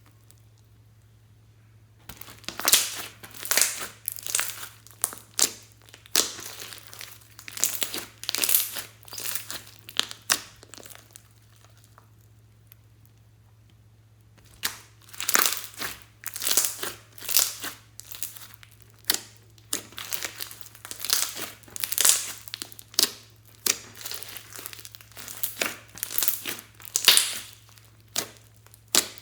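Clear slime mixed with floam beads being squeezed and pressed by hand, crackling and popping in a run of short bursts about once or twice a second. There is a pause just after the start and another around the middle.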